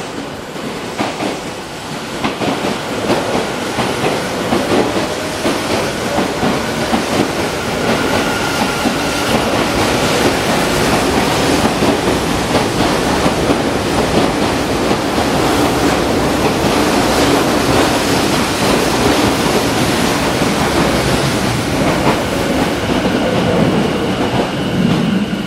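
Yokohama Minatomirai Railway Y500-series electric train pulling out and running past along the platform, growing louder over the first few seconds. Its motor whine rises in pitch, and its wheels knock over the rail joints.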